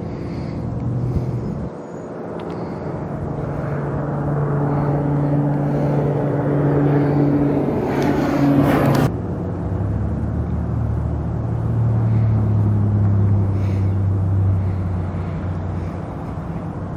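Twin-engine propeller airplane flying past. Its engine drone grows louder, then drops in pitch about nine seconds in as the plane passes and heads away, slowly fading.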